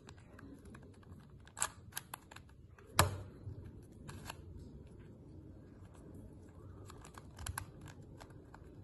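Plastic clicks and clacks of a Mastermorphix puzzle cube's layers being turned as it is scrambled, irregular, with one louder clack about three seconds in.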